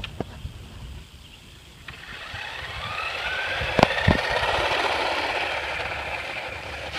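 Remote-control truck's motor whining as it drives over gravel, the pitch slowly rising as it speeds up and comes close, loudest in the middle and fading near the end. Two sharp knocks come about four seconds in.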